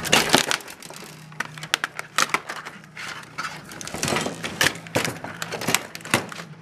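Steel top cover of an HP BL860c server blade being unscrewed and lifted off: an irregular run of sharp metallic clicks, clatters and scrapes of the sheet-metal panel on the board and bench.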